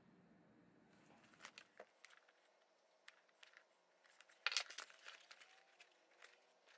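Leather being handled: faint rustling and crinkling with scattered light clicks, and a louder burst of crinkling about four and a half seconds in.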